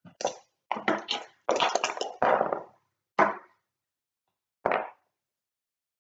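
Backgammon dice and checkers knocking on a wooden board: a quick clatter of hard clicks for the first few seconds, then two single clicks.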